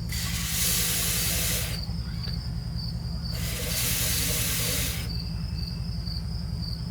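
Aerosol can of GumBuster carburetor cleaner hissing in two shots of about a second and a half each. The solution is being injected through a purge valve into a gummed-up snowblower carburetor to dissolve the gum in its jets.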